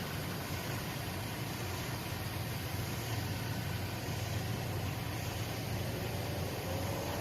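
A steady, low engine rumble with an even noise over it, and no horn or distinct events.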